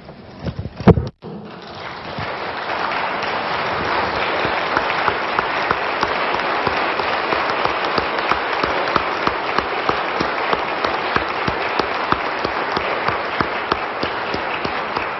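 A room of legislators applauding: steady clapping that swells in about a second and a half in and holds, thinning near the end. Just before it starts there is one loud thump.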